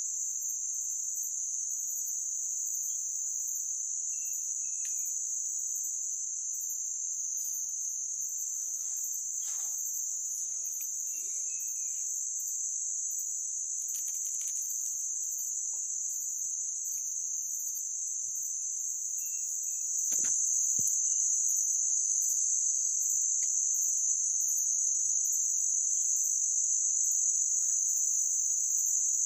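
Steady high-pitched insect chorus, with a few faint short chirps over it. The chorus gets a little louder about two-thirds of the way through.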